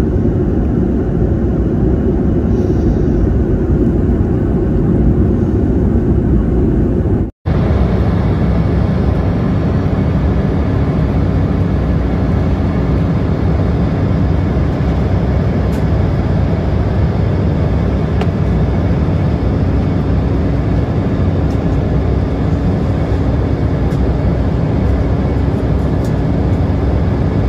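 Steady cabin noise of a jet airliner at cruise: an even low rush of engines and airflow heard from a window seat. About seven seconds in the sound cuts out for a split second, then resumes just as steady with a faint hum added.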